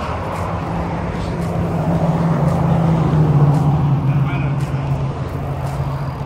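A motor vehicle's engine humming close by as it moves slowly past, growing louder to a peak about halfway through and then fading, its pitch sinking slightly as it goes.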